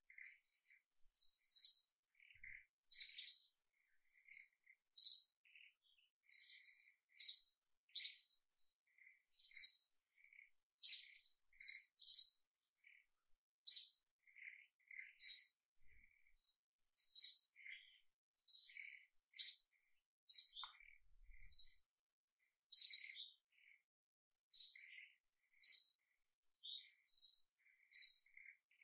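A bird chirping over and over: short, high notes repeated about once a second, with fainter, lower chirps in between.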